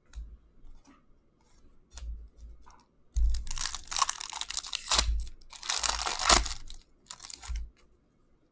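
Hockey card pack wrapper torn open and crinkled by hand, in three bursts of tearing and crackling, the first two each over a second long, after a few light clicks of cards being handled.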